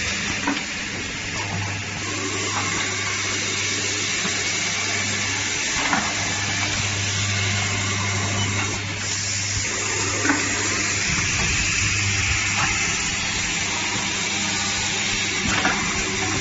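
Automated assembly machine running: a steady hiss over a low hum, with a sharp click or clack every few seconds.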